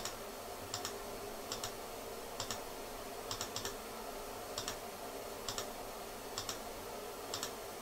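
Computer mouse button clicked about once a second, each click a quick press-and-release pair, advancing the trading software's simulated time one interval at a time.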